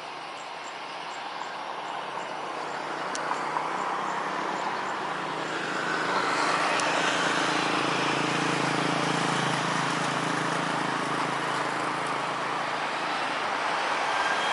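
Jet airliner engines passing close by, growing louder over the first six seconds and then holding a steady loud rush with a whine on top.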